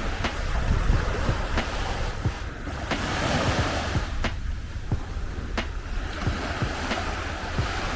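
Sea waves washing ashore, with wind rumbling on the microphone and scattered short knocks.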